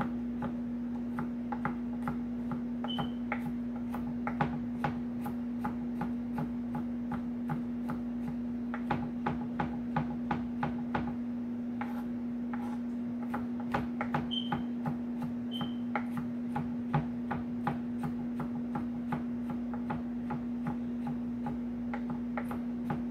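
Kitchen knife mincing garlic on a bamboo cutting board: repeated sharp chopping taps, a few a second, some in quick runs. A steady low hum sits under it.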